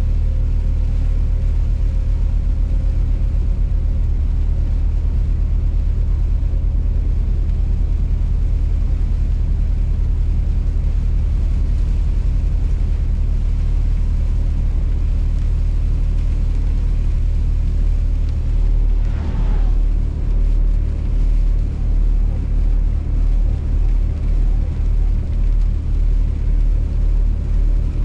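Steady low rumble of a Scania R450 truck's 13-litre six-cylinder diesel and its tyres on the road, heard from inside the cab while driving. About two-thirds in there is a short falling whine, and from then on the rumble pulses about once a second.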